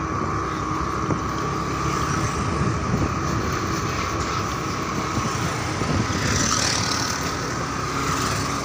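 Two-wheeler riding along a road with its engine running steadily, a steady whine over a low rumble, and wind rushing over the microphone.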